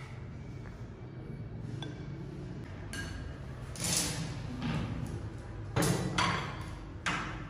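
Ceramic bowls and a large metal serving tray laden with dishes being set down on a wooden table: a few sharp knocks and clinks, the loudest about four seconds in and again near six seconds.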